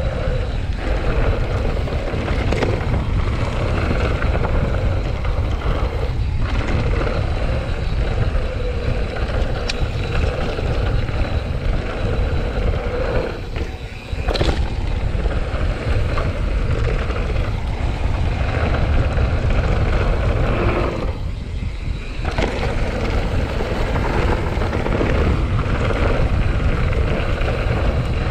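Mountain bike tyres rolling fast over a dirt and gravel trail, with wind rushing over the action camera's microphone and small knocks from the bike. It is a steady roar that eases briefly twice.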